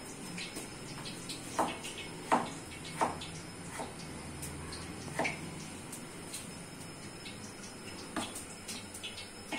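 Kitchen knife cutting raw potato into chips on a wooden cutting board, the blade knocking sharply on the board a handful of times at irregular intervals.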